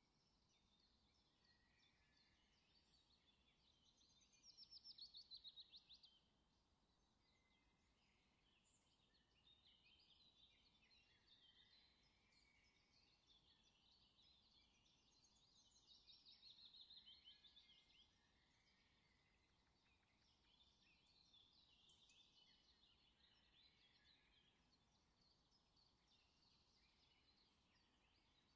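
Faint birdsong: repeated high chirps and quick trills, loudest about four to six seconds in and again around sixteen to eighteen seconds in.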